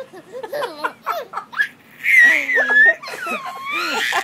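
Baby laughing: a run of short, quick giggles, then louder high-pitched squeals of laughter from about two seconds in.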